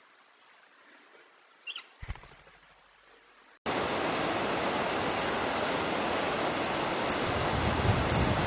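Short, high bird chirps: two faint ones in near quiet, then, after an abrupt jump in level, a steady hiss of background noise with a high, two-part chirp repeated about twice a second.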